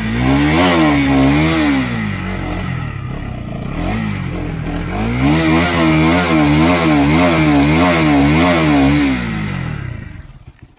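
Fuel-injected motorcycle engine revved in quick repeated throttle blips, the pitch rising and falling over and over, with a steadier lower stretch in the middle. It dies away near the end.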